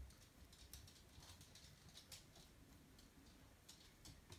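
Near silence, broken by several short, faint brush strokes: a small paintbrush dragging paint across a thin wooden panel.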